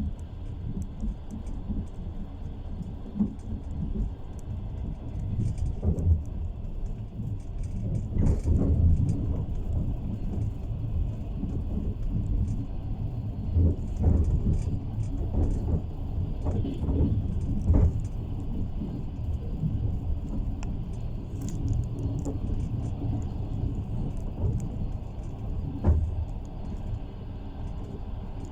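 Train wheels running over the rails: a steady low rumble with irregular clatters and knocks from the wheels and carriage.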